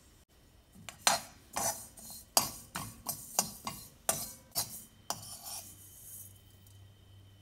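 Steel spoon scraping and stirring sesame, fennel and cumin seeds around a metal kadai: a run of sharp metal scrapes, about two a second, from about a second in until about five and a half seconds.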